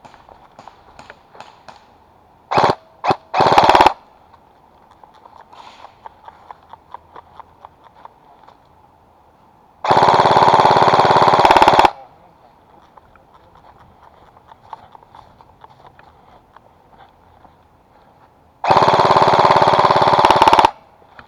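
Airsoft gun firing on full auto: three short bursts about three seconds in, then two long bursts of about two seconds each, around ten and nineteen seconds in. Faint scattered clicks can be heard between the bursts.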